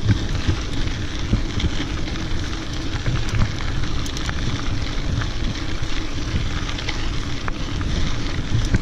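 Wide mountain bike tyres rolling over a dirt and gravel trail: a steady crunching rumble scattered with small clicks of grit, with wind buffeting the microphone.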